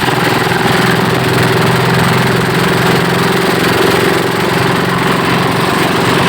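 Pompong boat engine running loud and steady under racing throttle, its pitch holding level.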